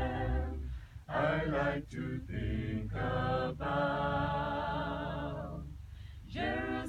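Voices singing unaccompanied: short sung phrases, then a long held note that slowly fades, and a new phrase starting near the end.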